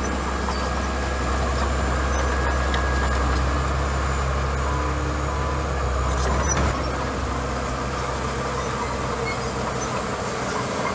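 Diesel engine of a small crawler bulldozer running steadily as it pushes gravel, a low drone with a brief louder burst about six seconds in.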